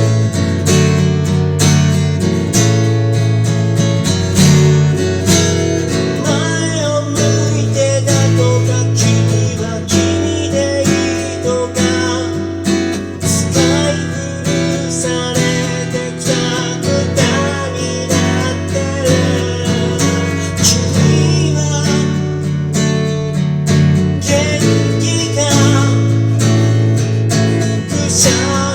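A song performed on a strummed acoustic guitar, with a voice singing the melody over the chords.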